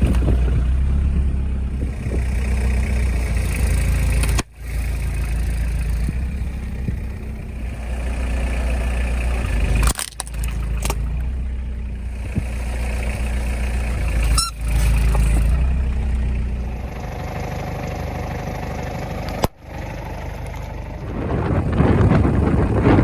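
Car engine running slowly with a steady low rumble, cutting off abruptly and resuming four times.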